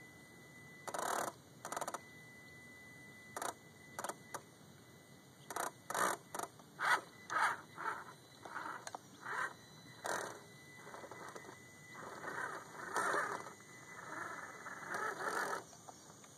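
Axial SCX10 RC crawler's electric motor and gear drivetrain whirring and grinding in short throttle bursts as its tyres churn through wet sand and mud, the bursts coming quicker in the middle and running longer near the end. The truck is crawling with a slipping rear axle.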